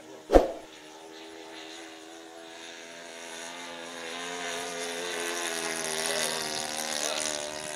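RC model airplane flying overhead, its motor and propeller making a near-steady drone that grows louder as the plane comes closer. A single sharp click comes about half a second in.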